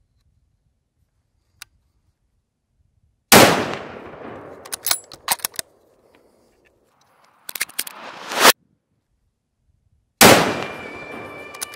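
Two 7mm Remington Magnum rifle shots, each a loud crack that rolls away in echo: one about three seconds in and another near the end. Between them come several sharp clicks.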